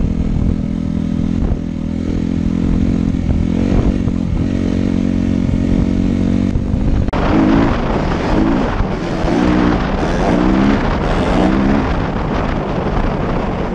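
Suzuki RM-Z250 four-stroke single-cylinder dirt bike engine running under way, steady at first. About seven seconds in the sound changes abruptly and the engine revs up in short repeated rises about once a second.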